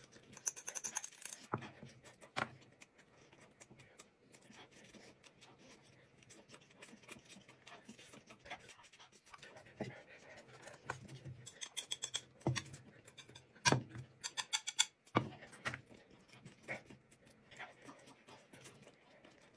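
Quiet eating sounds: chewing and mouth noises from people eating rolled thin pancakes, with scattered small clicks and crackles as the wraps are handled, a few of them louder in the second half.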